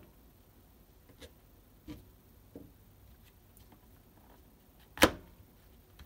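Kitchen knife cutting shiitake mushroom stems and knocking on a plastic cutting board: three light knocks, then one sharp, loud chop about five seconds in.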